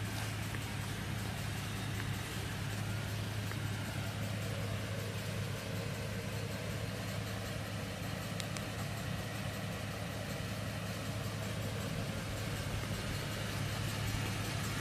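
Ford E450 chassis's 6.8L V10 gas engine idling with a steady low hum.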